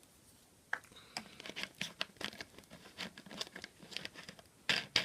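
iPhone home button being pressed rapidly over and over, a quick run of small sharp clicks starting about a second in, as alcohol is worked into the button to free up its sticky, unresponsive switch.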